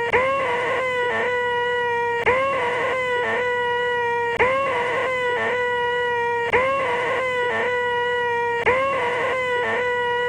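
A man's voice holding a shrill, nasal 'eeeeeh' screech, the 'most annoying sound in the world'. It restarts about every two seconds, each time with a slight upward bend in pitch before holding steady.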